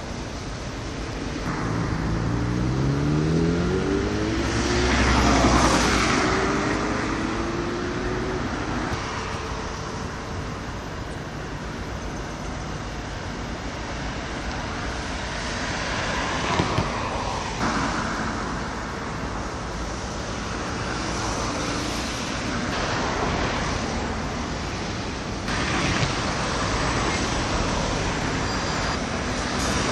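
Motor traffic passing: one vehicle accelerates with its engine pitch rising and passes close by about five seconds in, over a steady hum of road traffic with more vehicles going by later.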